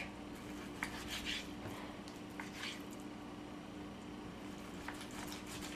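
Small knife cutting through raw beef on a wooden cutting board: a few faint soft scrapes and clicks, over a steady low hum.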